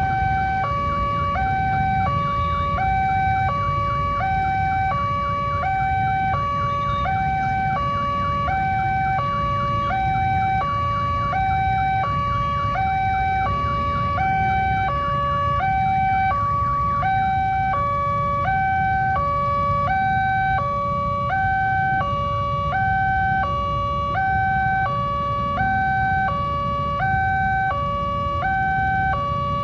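Electronic warning siren of a railway level-crossing gate sounding continuously, alternating between a higher and a lower note about once a second. It signals that the barrier is down and a train is approaching. A low rumble of background noise runs underneath.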